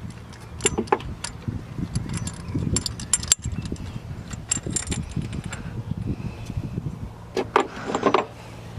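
Metal hand tools clinking and rattling in irregular sharp clicks, with a clustered burst of clinks near the end, over a steady low rumble.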